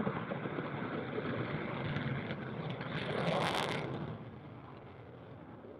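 Jet noise from a Eurofighter Typhoon's twin turbofans on its takeoff roll: a steady rushing roar that swells about three seconds in, then falls off sharply after about four seconds.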